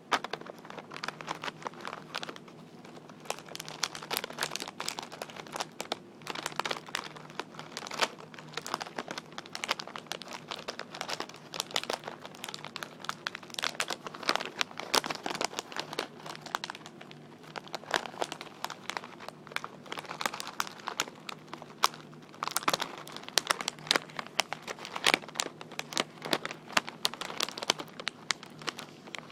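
Crinkly wrapping being crinkled and tapped with fingertips for ASMR: a dense, irregular run of crackles and quick taps that starts abruptly.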